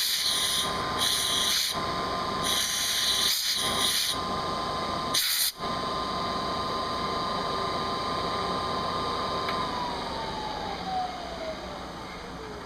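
CNC milling machine running, with short bursts of high hiss repeating through the first five seconds. The spindle's steady whine then falls in pitch over the last few seconds as the spindle spins down.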